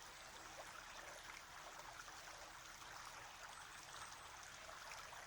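Near silence: a faint, steady rushing background noise with a low hum.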